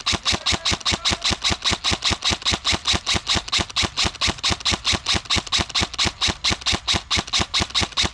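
Airsoft gun firing on full auto in one long, steady stream of sharp clicks, about seven shots a second, stopping at the end.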